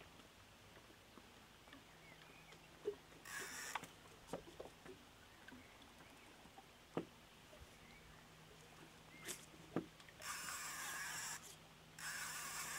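Faint night ambience: a low steady hum with scattered small clicks and knocks, and three short bursts of rasping noise, about three seconds in, about ten seconds in and near the end.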